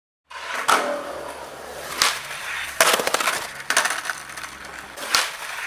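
Skateboard wheels rolling on concrete, broken by about five sharp clacks and smacks as the board and the falling skater hit the pavement, starting a moment in after silence.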